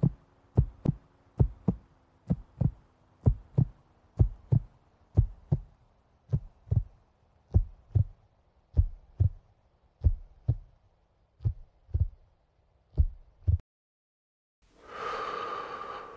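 Heartbeat sound effect: paired lub-dub thumps that slowly slow down, then stop. After a moment of silence, a short swelling tone comes in near the end.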